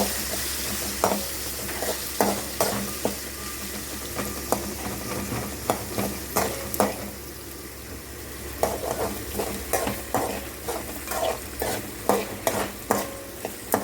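Chopped onions sizzling in the hot oil of a tempering, with a spatula clicking and scraping against the pan as they are stirred. The sizzle eases off around the middle and the stirring clicks come more often after that.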